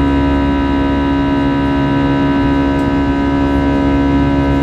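Airbus A320-214's CFM56-5B turbofan engines running at climb thrust, heard inside the cabin: a loud, steady drone made of many steady tones over a low rumble.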